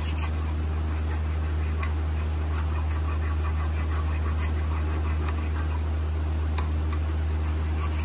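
Hand file scraping rust off a Ford Ranger's cast-iron front caliper bracket, cleaning the pad-clip seats down to bare metal so the new clips fit: a few short, uneven strokes over a steady low hum.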